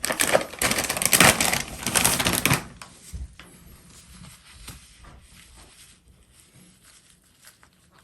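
Loud rustling and rubbing, like material being handled or crumpled, for about two and a half seconds, then only faint scattered clicks and light knocks.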